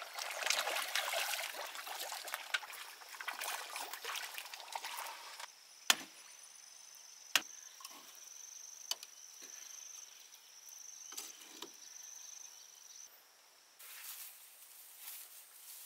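Sharp single chopping knocks, the loudest about six and seven and a half seconds in, with a steady high-pitched insect buzz behind them. The first five seconds hold a dense crackling, splashing noise.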